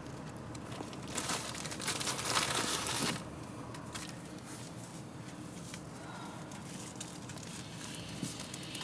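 Paper food packaging crinkling in hand for about two seconds, starting about a second in, over the low steady hum of a car cabin.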